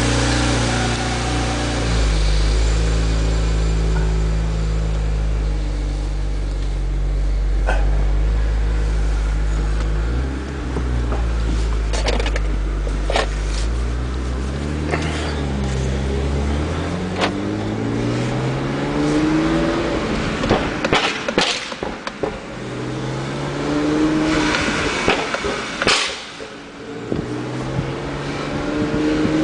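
2009 BMW 135i's N54 twin-turbo straight-six running, first at a steady drone and then revving up and dropping back several times. Sharp pops come from the exhaust, most of them in the later revving: backfire-like popping caused by an incorrectly installed exhaust.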